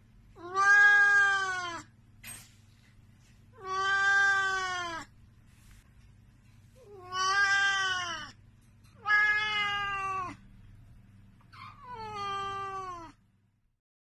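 A domestic cat meowing five times, each meow long and drawn out, rising and falling in pitch, over a faint steady low hum.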